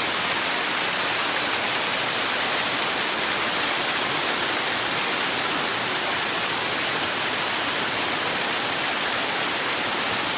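Steady rushing of water pouring down a waterfall cascade: an even, unbroken hiss.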